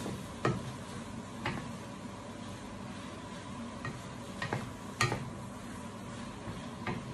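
Wooden spatula stirring and scraping bitter melon and scrambled egg around a nonstick frying pan over a steady sizzle of frying, with several sharp knocks of the spatula against the pan, the loudest about five seconds in.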